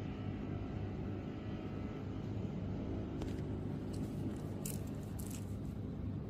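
Steady low hum or rumble, with a sharp click about three seconds in and a few brief scraping rustles a little later, as the mouse is handled.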